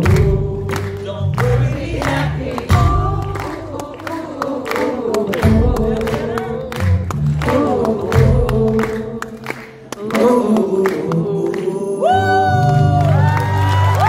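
Live concert music: strummed acoustic guitar over a steady beat and bass, with many voices singing along. High whoops ring out near the end.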